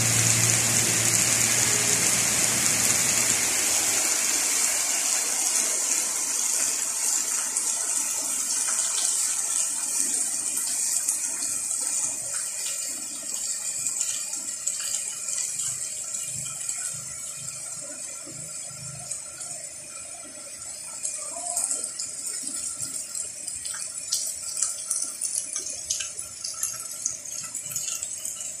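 Heavy rain falling on trees and a flooded street, a dense steady hiss that gradually eases. A low hum runs under it for the first few seconds, and scattered sharp taps of drops come through in the last third.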